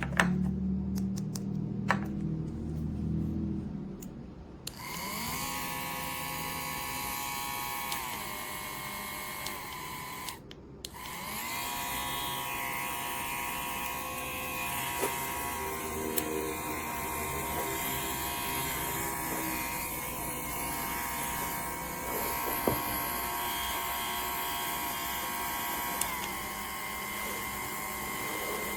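Small portable airbrush compressor motor running with a steady high whine. It starts about five seconds in, cuts out for under a second a few seconds later, then runs on, its pitch stepping down slightly now and then.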